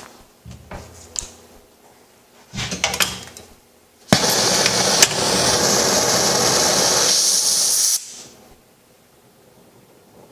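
Oxy-acetylene welding torch being lit: a sharp pop about four seconds in, then a loud, steady hiss of gas and flame for about four seconds that cuts back abruptly. Faint clicks and glove handling come before it.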